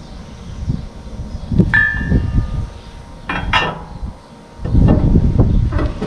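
Steel parts of an M&W 1500 round baler being worked on: a metal clank that rings briefly with a bell-like tone, then a couple more sharp clanks, and a louder stretch of low rumbling handling noise near the end.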